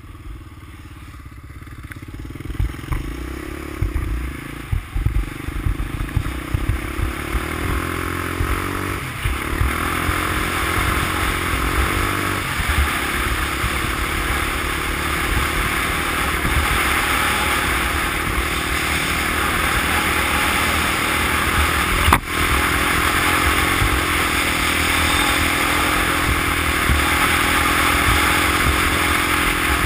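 A 350X ATV's single-cylinder engine pulls away from low revs and accelerates, with steps in pitch about 9 and 12 seconds in, then holds a steady cruising speed under wind and tyre noise. A single sharp knock comes about 22 seconds in.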